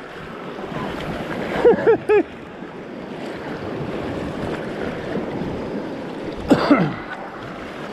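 Sea surf washing over shoreline rocks, with wind on the microphone. A few short voice-like sounds come about two seconds in, and a sharp knock with a brief falling tone comes near the end.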